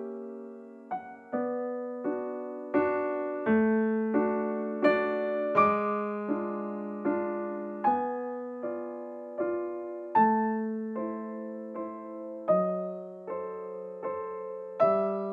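Background music: a gentle piano piece, chords struck at an even pace, each ringing and fading before the next.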